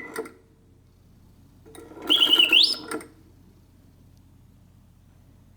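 1960s Karl Griesbaum singing bird cage automaton on its intermittent setting: a burst of whistled birdsong cuts off at the start, and after a pause a single short burst of song comes about two seconds in, over a low buzz and ending on a rising whistle, before it pauses again. The pauses show the bird's mechanical movement working as it should.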